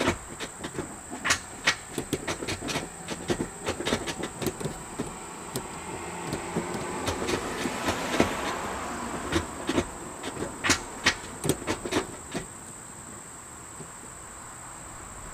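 Irregular metal clicks and rattles as a titanium shift rod is turned by hand and threaded into a short shifter's lever arm, stopping near the end, over a steady high-pitched whine.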